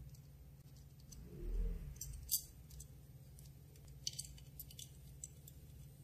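Small metal parts of a vintage Ronson gas lighter clicking and ticking faintly as fingers turn out its screws. A dull bump comes about a second and a half in, a sharper click just after two seconds, and a cluster of light ticks around four to five seconds, all over a low steady hum.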